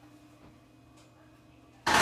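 Low steady hum in the cab of a stationary JR Kyushu 815 series electric train, then near the end a short, sudden, loud burst of noise that dies away within a fraction of a second.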